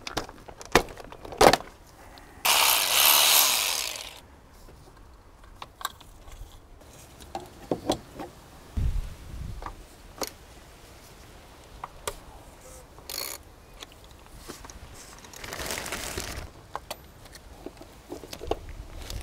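The plastic engine cover of a diesel engine is pulled off its mounts with two sharp pops, followed by a loud scraping rush lasting about a second and a half. Then a ratchet wrench clicks and knocks as the oil filter housing is worked on, and a plastic bag rustles near the end.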